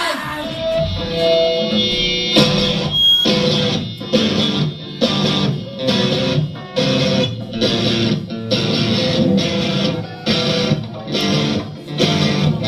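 Live punk rock band playing loud electric guitar, bass and drums: a held chord for about two seconds, then a run of short, chopped chord hits with brief gaps between them.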